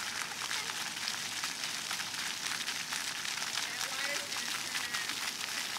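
Splash-pad fountain jets shooting up and splattering onto wet concrete: a steady, hissing patter of falling water.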